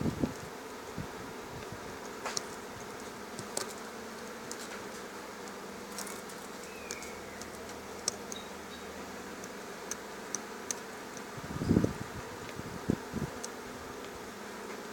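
Steady electrical buzzing hum, with scattered light clicks and a few low knocks about twelve seconds in.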